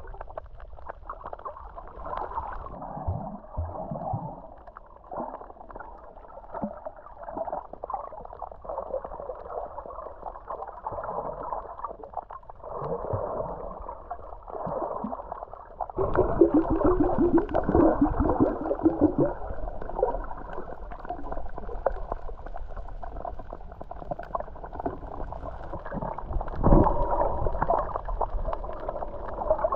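Muffled underwater water noise picked up by a camera in its waterproof housing: irregular gurgling and sloshing. It grows louder and more bubbly for a few seconds just past the middle, and surges briefly again near the end.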